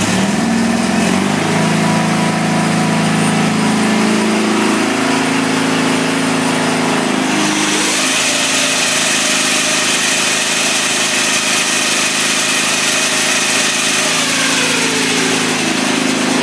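A Wheel Horse C-195 garden tractor's engine runs loud and steady at full throttle, its pitch rising just at the start. About seven and a half seconds in, the 42-inch single-stage Wheel Horse snow thrower is engaged and its auger spins up, adding a high whine and whir over the engine.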